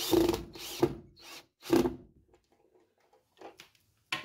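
Cordless drill-driver run in about four short bursts in the first two seconds, driving a screw through plasterboard into a wooden batten behind it. Then a few faint handling sounds and one sharp click near the end.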